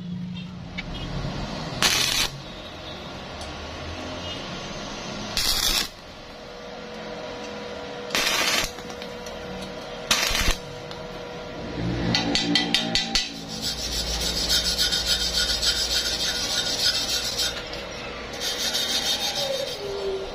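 Stick welder striking short tack welds on thin steel angle against square tube: four brief bursts of arc noise, about half a second each, in the first half. In the second half come a rapid crackle, then a longer run of arc hiss.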